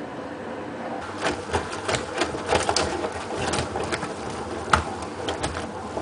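Hotpoint Ultima WT960 front-loading washing machine running with its door open and its drum turning a load of towels. A steady motor hum runs under irregular clicks and knocks that start about a second in, with one sharp knock near the end.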